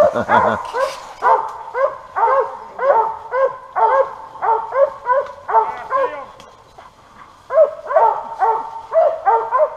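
Squirrel dog barking treed at the base of a tree, a steady run of barks about two a second with a short pause about two-thirds of the way through, the sign of a squirrel up that tree.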